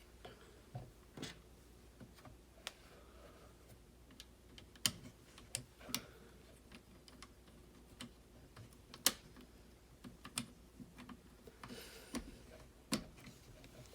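Scattered small clicks and taps of the plastic parts of a Tamiya TT-02 radio-control car kit being handled and fitted together, at irregular intervals, the loudest about nine seconds in.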